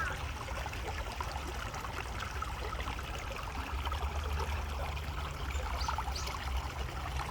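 Flowing water: a stream running steadily with a continuous rushing and trickling.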